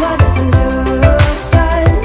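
Background pop/R&B music with a steady drum beat.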